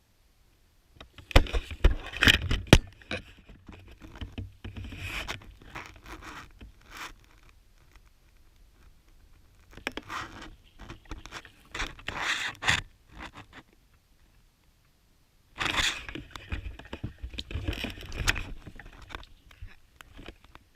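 Rustling and scraping in four bursts of a few seconds each, with sharp clicks and crunches among them.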